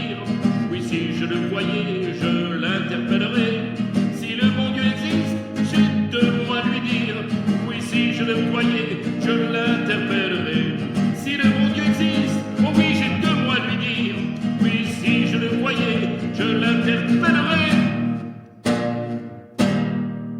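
Instrumental music closing a song: guitar with a melody line over sustained low notes. The music ends on two struck chords a second apart near the end, each left to ring and fade.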